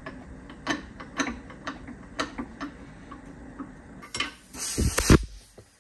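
Sharp metal clicks and taps, about two a second, as a metal rod works against the spring-loaded piston inside a seized TR6 brake or clutch hydraulic cylinder clamped in a vise. About four seconds in comes a brief, louder rushing hiss with a few thuds.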